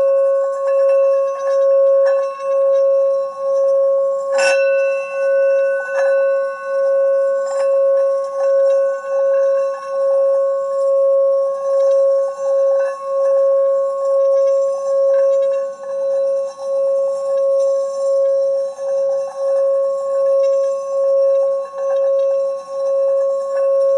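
Small brass singing bowl rubbed around its rim with a striker, singing one steady ringing tone that swells and fades a little more than once a second. The striker hits the bowl once about four and a half seconds in, and clicks lightly against the rim a few more times.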